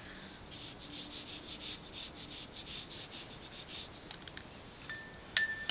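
Paintbrush stroking wet paint across textured watercolour paper, a soft scratchy swish repeating about three times a second. Near the end come a few light clicks and a brief ringing clink.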